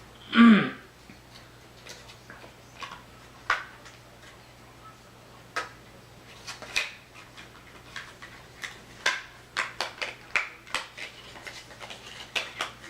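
Small hard objects being handled on a tabletop: scattered light clicks and taps, coming more often in the last few seconds.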